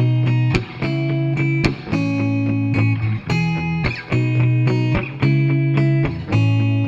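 Background music: guitar-led instrumental with a steady pulse of plucked chords over a sustained bass, the chords changing about every half second.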